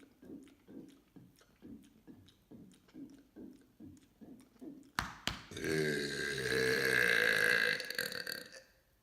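A long, loud burp lasting about three seconds, starting about five and a half seconds in, just after two sharp clicks. Before it, soft low pulses repeat about twice a second.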